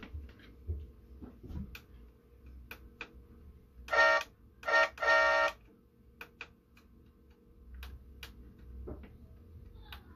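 Small plastic clicks and ticks from handling a scale model car's door and switches. About four seconds in, the model's small built-in speaker plays a short buzzy electronic sound effect in three quick bursts.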